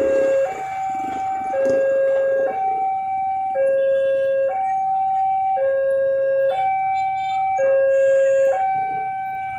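Electronic two-tone warning alarm in a steady hi-lo pattern, switching between a low and a higher tone about once a second.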